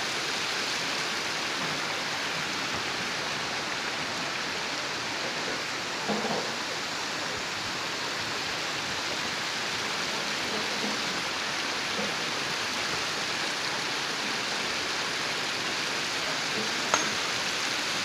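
Steady, even hiss of water, with a brief sharp click near the end.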